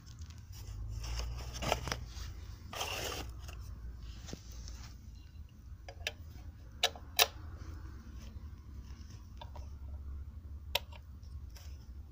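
Handling of a cardboard box and a metal guitar distortion pedal: rustling and scraping in the first few seconds, then three sharp clicks a little past halfway and one more near the end as quarter-inch jack plugs are pushed into the pedal's sockets.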